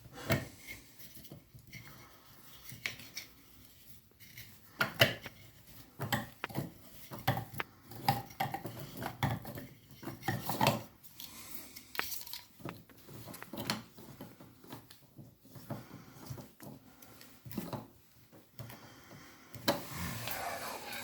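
A shower fixture being handled and screwed by hand onto the tape-wrapped threads of the shower pipe: irregular clicks, clinks and short scrapes of the fitting turning on the threads.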